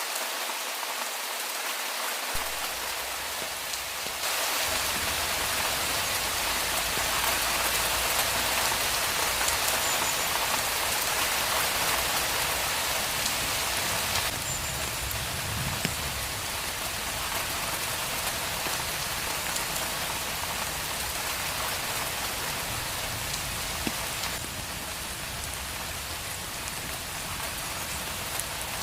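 Steady rain falling on a street, a continuous hiss of drops that grows a little louder about four seconds in and eases off again later.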